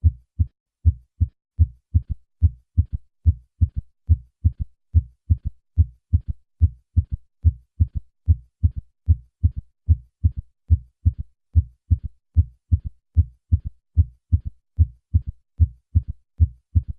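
A patient's heart sounds in a steady, regular rhythm of short, low, dull thuds, with a third heart sound (S3) following the second sound early in each diastole to give a galloping beat. In patients over 40, an S3 usually indicates decreased left ventricular function.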